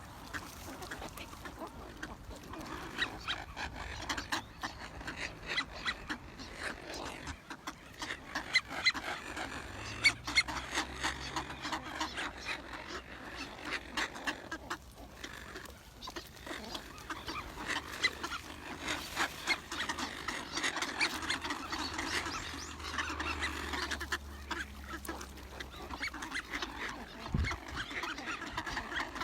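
A flock of waterfowl calling: many short quacks and honks overlapping continuously.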